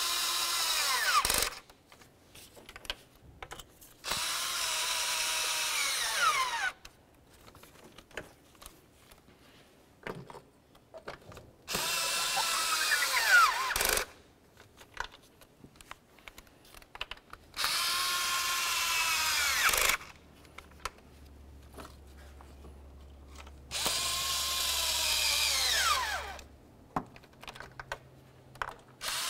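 Cordless electric ratchet running in five bursts of about two to three seconds each, separated by quiet gaps with light clicks. Each run's whine drops in pitch at its end as the valve cover bolt snugs down and loads the motor.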